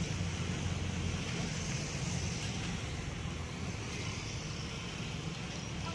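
Steady vehicle and road-traffic noise: a continuous low rumble under an even hiss.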